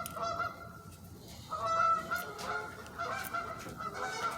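Geese honking in a rapid series of short calls, with a brief lull about a second in before the honking resumes.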